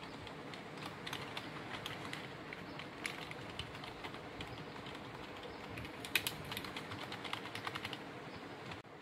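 Keys of an HP mechanical keyboard being typed on, in quick irregular clicks with a fast flurry about two-thirds of the way through, over a steady background hiss.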